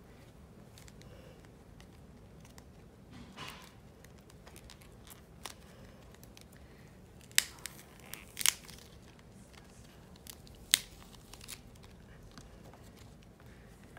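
A nail-polish-coated clay ball squeezed and torn apart by hand: faint crackling with a few sharp cracks of the coating, the loudest about seven, eight and a half and eleven seconds in. The coat gives only a weak crackle, and she blames the nail polish for the failed cracking.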